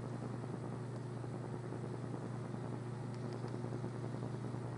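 Room tone: a steady low hum with a faint even hiss and no other events.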